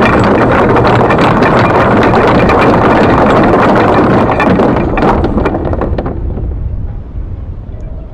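Electric anchor windlass running, hauling galvanized anchor chain over its gypsy with a steady clatter of links. It stops about six seconds in, leaving low wind noise on the microphone.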